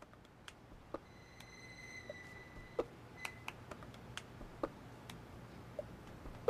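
Faint, irregular clicks and taps over a low hiss. About a second in, a high beep sounds for about a second, with a short repeat about a second later.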